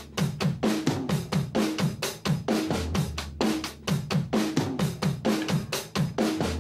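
Background music: a steady drum-kit beat of kick, snare and hi-hat, with low pitched notes under it.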